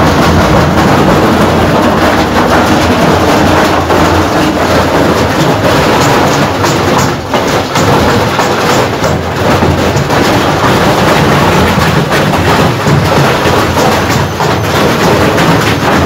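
Front-load washing machine running at full speed with a heavy stone in its drum, its casing torn open: a loud, continuous clattering and banging as the wildly unbalanced drum and loose parts knock about.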